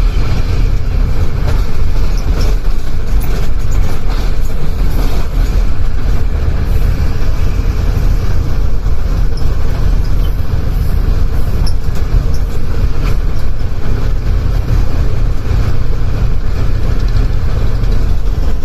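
A passenger train's diesel locomotive running at top speed, heard from inside the driver's cab: a loud, steady rumble of engine and wheels on the rails, with scattered faint clicks.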